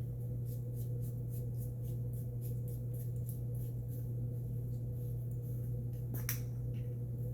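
Small clicks and taps from a flashlight being handled and worked over in the hands, with one sharper click about six seconds in, over a steady low hum.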